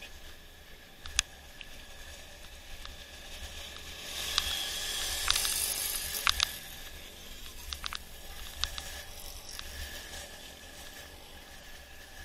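Mountain bike descending a paved road: a steady hiss of tyres and wind with a low rumble, broken by scattered sharp clicks and rattles from the bike over bumps. The rush of noise grows louder for a couple of seconds about four seconds in.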